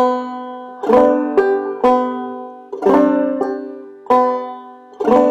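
Banjo played clawhammer style at a slow practice tempo: struck melody notes and brush strums about once a second, each ringing out and fading, the same short phrase looped.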